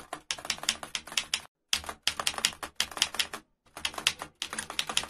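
Manual typewriter keys clacking in quick runs of keystrokes, about seven strokes a second, broken by short pauses.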